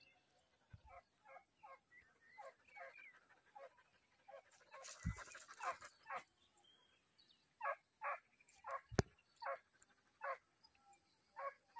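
A series of short animal calls repeated in runs, a few every second, with gaps between the runs. One sharp click comes about nine seconds in.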